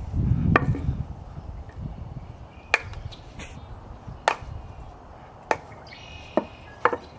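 Mora Companion Heavy Duty knife chopping into a stick, used like an axe: about six sharp, separate blows a second or two apart.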